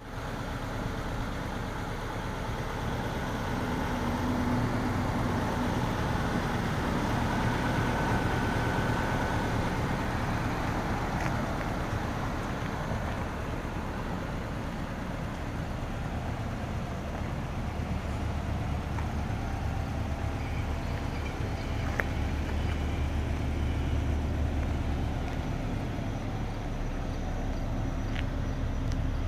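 Subaru Forester's turbocharged 2.0-litre EJ20 flat-four idling steadily, a low, even hum that grows stronger in the second half.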